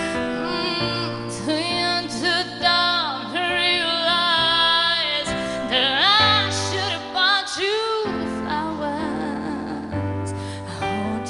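A woman's voice singing long, sliding vocal runs on 'ooh' into a microphone, over a live band's held keyboard chords and bass.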